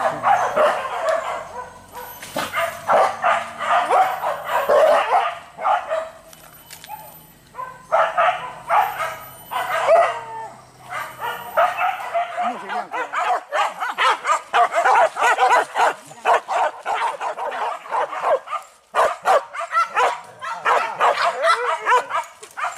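Several hunting dogs barking and yelping almost without pause, the barks overlapping, with a short lull about six seconds in and another near nineteen seconds.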